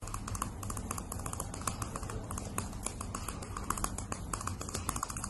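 A dog's teeth chattering in quick, irregular clicks, several a second, over a low steady hum: the chattering of a sighthound grinning with its teeth bared.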